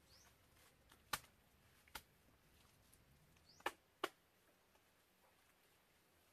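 Four sharp slaps in a quiet wood as hands pack wet mud onto a mud wall: a pair about a second in and another pair about three and a half seconds in.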